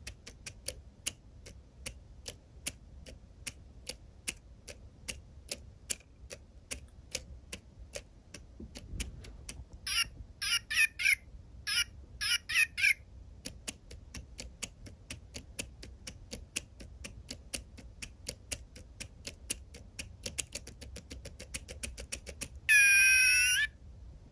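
Tomy Micro Pets robot cat toy making its electronic sounds: a run of short, high chirping beeps about ten seconds in, and one longer, louder warbling call near the end. A steady, fast ticking runs underneath.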